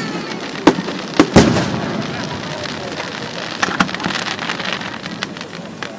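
Aerial firework shells bursting overhead: three sharp bangs in the first second and a half, the last the loudest. A dense crackle follows, with a few smaller pops about four seconds in, and it fades a little near the end.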